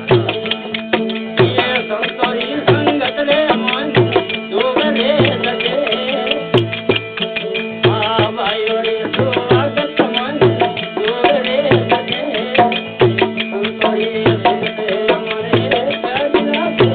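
Folk bhajan music: a hand drum keeps a steady beat of about one and a half low strokes a second under a held drone and a wavering melody line.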